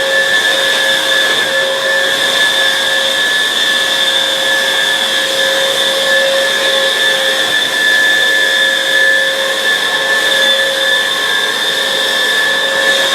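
Hoover React cordless, lithium-battery upright vacuum cleaner running steadily: a constant motor whine over a rushing hiss.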